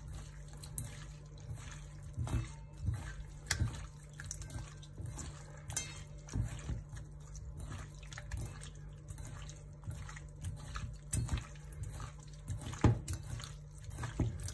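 Hands squeezing and mixing raw chicken breast pieces in liquid shio koji in a stainless steel bowl: irregular wet squelches and slaps, with one sharper slap near the end.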